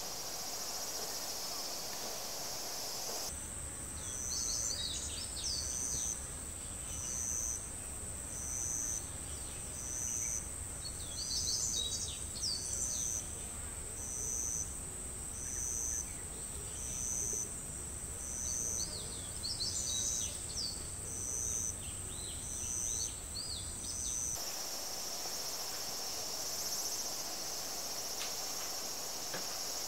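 Insects droning in woodland: a steady high buzz with a pulsing chirp about once a second, over which short chirping calls come in a few bursts. It starts abruptly about three seconds in and cuts off about 24 seconds in, with a plain outdoor hiss either side.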